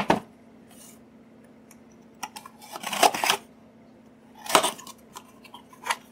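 Blade slicing through the packing tape on a cardboard shipping box, with the box being handled, in a few short scraping strokes, the longest about three seconds in.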